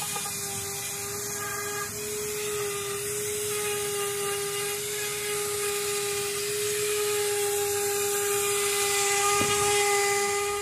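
Small corded handheld power tool with an abrasive disc running steadily with a high whine and hiss, scuffing the old paint off a semi-truck cab as prep for repainting.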